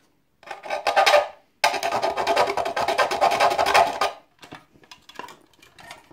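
Rasping scrape on a thin plexiglass box: a short stretch about half a second in, then a longer one of about two and a half seconds, followed by lighter taps and handling clicks.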